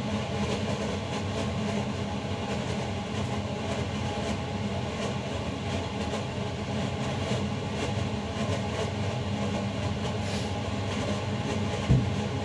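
Steady low mechanical hum and rumble, with a single sharp knock near the end.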